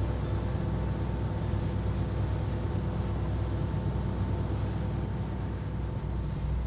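Lobster boat's engine running steadily, a low even rumble.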